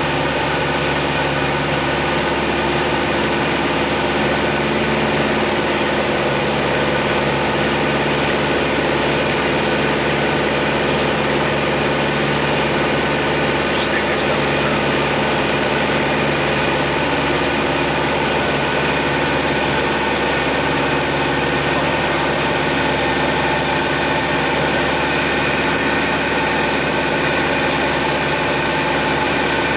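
Van's RV-6 piston engine and propeller running at a steady, unchanging power in flight, heard from inside the cockpit as a constant drone.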